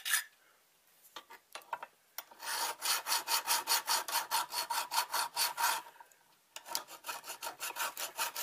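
Hand file scraping in quick, even strokes across the hardened steel of a knife, cutting coarse scratches so the handle epoxy will grip. After a couple of seconds of only a few scattered scrapes, the filing runs steadily, stops briefly about six seconds in, and starts again.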